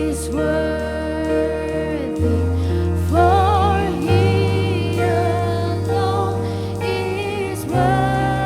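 Christian worship music: a singing voice holding long notes with vibrato over sustained chords and a steady bass line that changes note every couple of seconds.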